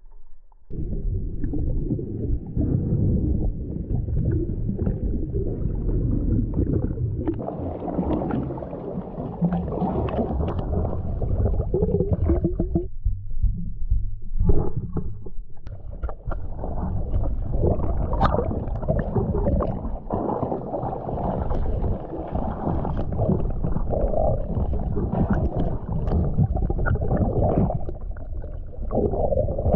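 Muffled underwater rumble and gurgling of water moving over an action camera's waterproof housing as a freediver swims, starting suddenly about a second in, with a few sharp knocks along the way.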